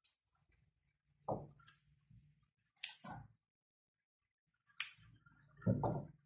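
Yardlong beans being snapped by hand into short lengths, about five crisp snaps spread over several seconds, mixed with duller knocks of the beans against a wooden cutting board.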